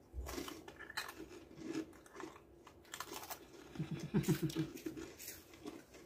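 Crumbly, caramel-coated corn puff snacks (Beaver Nuggets) being chewed with the mouth close to the microphone, in irregular crunches. A short hum of a voice comes about four seconds in.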